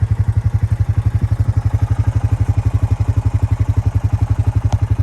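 Motorbike engine idling steadily, a fast even putter of about thirteen low pulses a second.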